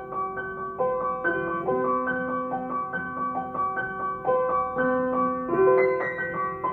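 Piano music: a gentle melody of single notes struck one after another and left to ring over lower held notes.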